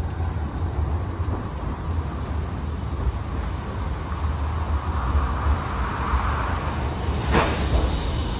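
Hiroden 1000-series Green Mover LEX low-floor tram approaching on wet street track, its running noise swelling over the last few seconds, with a sharp clack about seven seconds in, over a steady low rumble.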